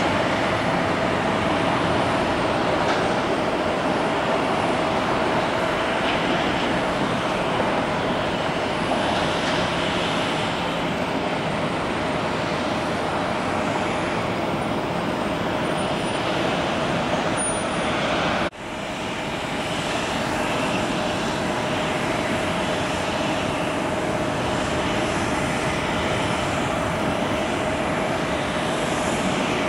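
Taxiing jet airliner engines running: a steady roar with a held whine through it. The sound drops away sharply for an instant about two-thirds of the way through, then comes back.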